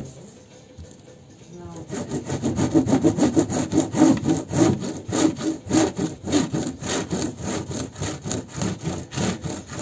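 Bamboo rolling mat rolled rapidly back and forth under flat hands, its slats rubbing and rattling over wet fibres on a towel in a fast, even rhythm of several strokes a second, starting about two seconds in. This is the rolling stage of wet felting fibres into dreadlocks.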